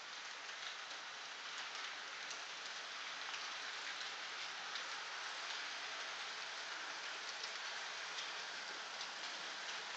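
HO scale model train rolling over the track, a steady rushing hiss of wheels on rails with faint scattered clicks, growing a little louder as the train draws near.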